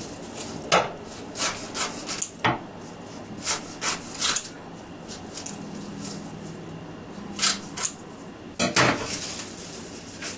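Scissors snipping through thin, papery dried nori seaweed sheets: a string of short, crisp cuts at an uneven pace, with a pause of a few seconds in the middle.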